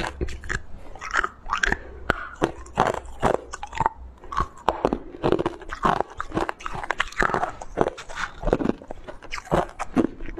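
A person biting and chewing chunks of coloured ice, with many sharp, irregular crunches one after another.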